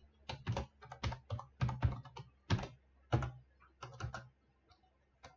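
Typing on a computer keyboard: irregular keystroke clicks, a few a second, thinning out near the end.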